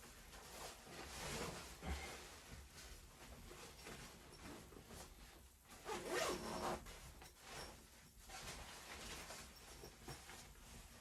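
Irregular rustling and scraping handling noises in short bursts, loudest about six seconds in.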